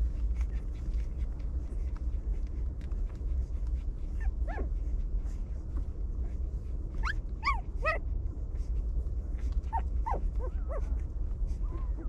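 Puppies whimpering and yelping in short, high, rising-and-falling cries: one about four seconds in, a cluster of several around the middle, and more near the end. A steady low rumble runs underneath.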